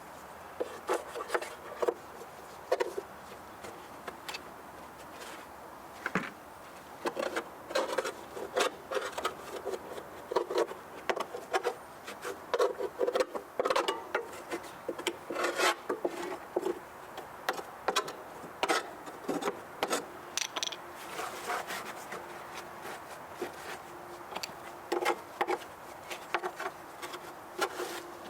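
Irregular scraping, rubbing and knocking of hand work on a walk-behind lawn mower, in uneven clusters, with a faint steady hum in the second half.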